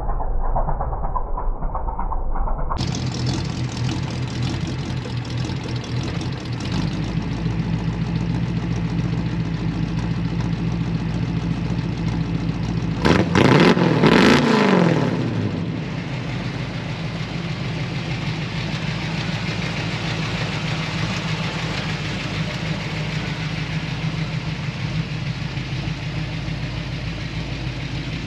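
Chevrolet 350 V8 with headers and dual exhaust in a 1963 Chevrolet C-10 pickup, running steadily. It sounds muffled for the first few seconds, and there is a brief louder rev with the pitch rising and falling about halfway through.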